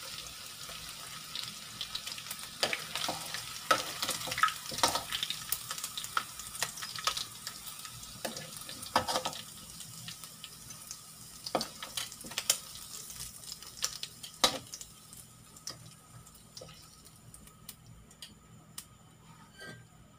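Hot oil sizzling and crackling with sharp pops as browned breaded chicken pieces finish deep-frying and are lifted out. The crackles thin out and the sizzle quietens over the last few seconds.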